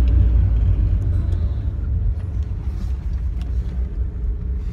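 Daihatsu Charade's engine and road noise heard from inside the moving car: a steady low-pitched drone that eases off slightly. The engine is running on petrol vapour from a homemade bubbler rather than liquid fuel.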